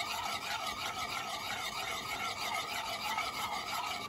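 Metal spoon beating egg and milk in a ceramic plate, scraping round the plate in a steady rhythmic rasp.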